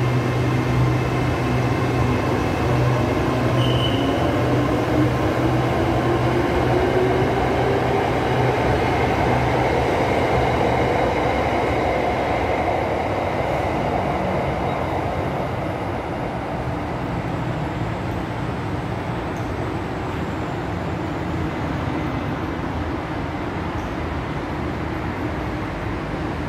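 Electric commuter train of the SRT Red Line running past, its motor whine rising in pitch over the first ten seconds or so. A low hum stops about eleven seconds in, and from about fifteen seconds in the running noise is steadier and a little quieter.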